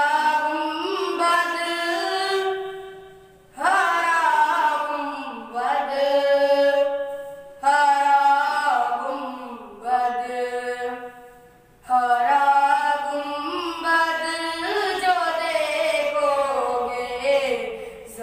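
A boy singing an Urdu nazm (devotional poem) into a microphone with no instruments, in four long melodic phrases with held and gliding notes and a short break for breath between them.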